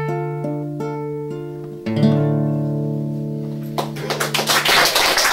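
Acoustic guitar finishing a song's outro: picked notes over held bass strings, with a new chord struck about two seconds in. Near the end, clapping from the audience breaks out over the last ringing chord.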